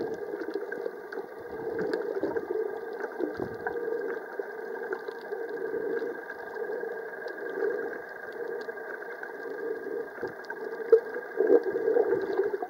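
Muffled underwater water noise heard through a camera's waterproof housing, swelling and fading unevenly, with a few dull thumps.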